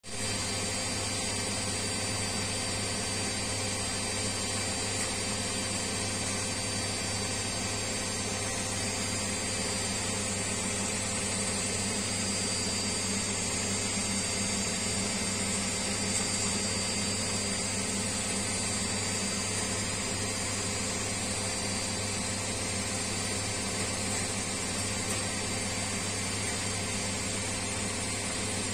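Beko front-loading washing machine on its spin cycle: the drum turning fast without pause, with a steady motor hum and a high whine over the rush of the drum.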